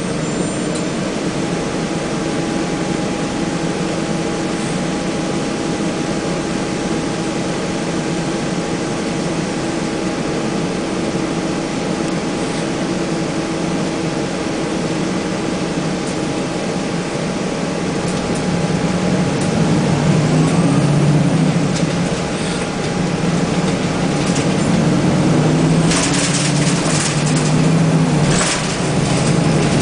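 Nova Bus RTS transit bus's Detroit Diesel Series 50 engine and ZF automatic transmission, heard from inside the bus. It runs steadily with a thin whine, then from about 18 seconds in it grows louder, its pitch rising and falling as the bus accelerates through its gears. Near the end come a few sharp scraping clicks.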